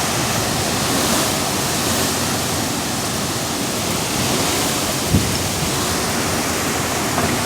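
Hurricane wind and heavy rain making a steady, loud rushing noise, with a single low thump about five seconds in.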